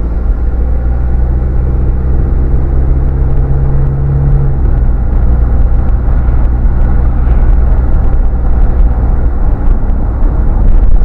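Mazda Bongo campervan's engine idling, a steady low hum that shifts slightly in pitch about four and a half seconds in.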